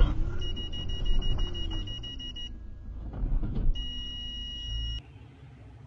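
High electronic warning tone inside a car that has just bumped into the back of a lorry: it sounds for about two seconds, stops, then sounds again for about a second, over a low engine and cabin rumble with a few light knocks. It cuts off suddenly near the end.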